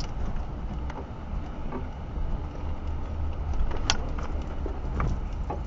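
Low, steady engine rumble of a 4x4 crawling slowly over a rocky, washed-out dirt trail, heard from inside the cab, with scattered knocks and clicks from rocks and the body. The sharpest come about four seconds in and again a second later.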